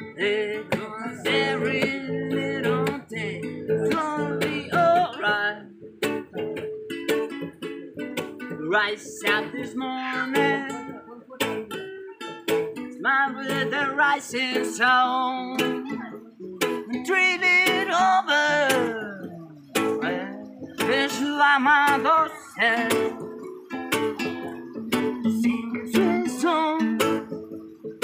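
Two acoustic guitars played together, strummed and picked, with a man's voice singing over them.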